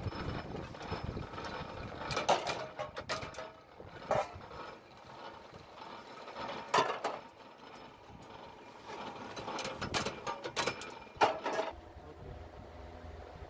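Thin aluminium pan lids and pots clinking and clattering as they are handled, with several sharp metallic knocks a couple of seconds apart and rustling of plastic wrapping in between.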